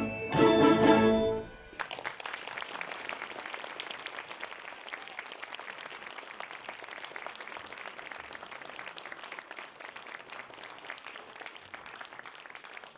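A Russian folk-instrument orchestra with balalaikas plays its closing chords, which stop about a second and a half in. An audience then applauds, and the clapping slowly thins out.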